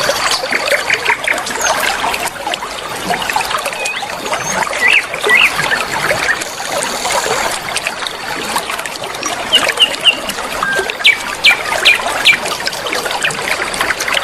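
Flowing river water trickling steadily, with songbirds chirping and whistling over it; a run of sharp, quick whistled notes comes about two-thirds of the way through.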